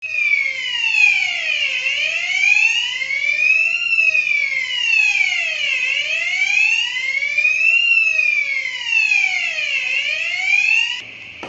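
Electronic fire alarm hooter of a Ravel fire alarm system wailing, its tone sweeping slowly down and up about once every four seconds, signalling an alarm. It drops sharply in level near the end.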